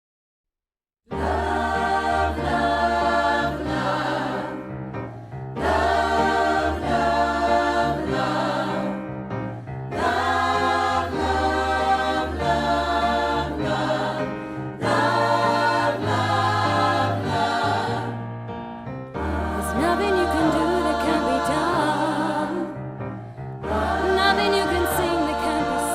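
Choral music: a choir singing over sustained low bass notes, in phrases of about four to five seconds with brief breaks between them. It starts about a second in, out of silence.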